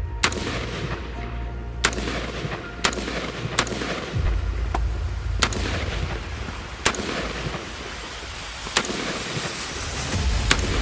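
Colt M4 carbine firing 5.56x45mm NATO rounds in single shots, about nine sharp reports at uneven gaps of one to two seconds: semi-automatic fire.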